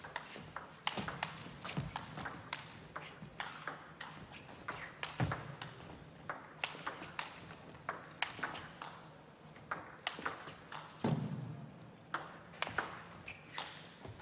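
Table tennis rally: the ball clicks sharply off the bats and the table in a long, uneven run of quick knocks, about two a second. A short, duller thump comes about eleven seconds in.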